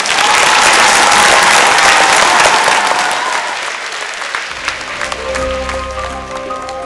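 Studio audience applauding, with one long high note held over the clapping for about three seconds. The applause fades after about four seconds as music with steady notes begins.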